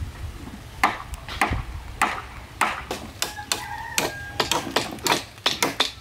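Irregular sharp wooden knocks and clacks of bamboo poles being handled and fixed on a bamboo house frame, coming faster in the last two seconds.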